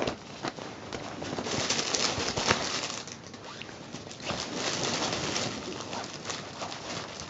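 Nylon pop-up cat tunnel rustling and crinkling as a cat swats inside it at a fabric kicker toy, in two louder bouts with a few light taps.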